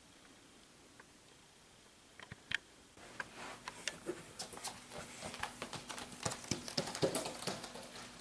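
Near silence, then from about two seconds in a few light clicks, turning about a second later into a rapid, irregular run of light clicks and taps.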